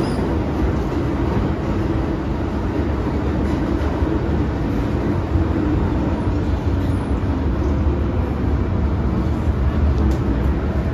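MTR M-Train carriage running through a tunnel, heard from inside the car: a steady rumble of wheels and running gear.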